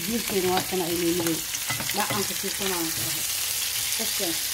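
Meat and onion slices sizzling in hot oil in a cast-iron pan, stirred and pushed about with a wooden spatula. Pitched, voice-like sounds come and go over the sizzle.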